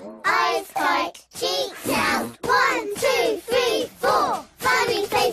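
Children's voices singing a cheerful cartoon song in short, separate syllables, about two a second, with the pitch swooping up and down.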